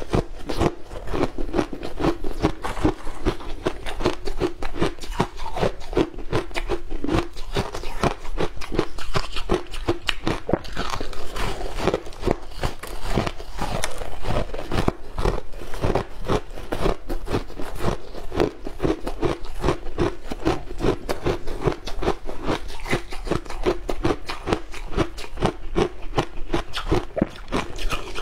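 Chunks of frozen shaved ice being bitten and chewed: a dense, unbroken run of crisp crunches and cracks.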